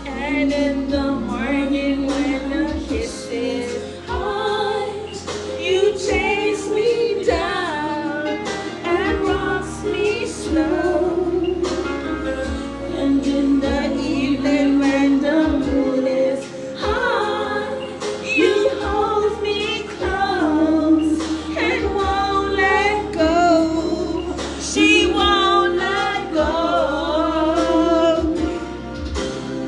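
Music: a song with a woman singing the lead over a backing track.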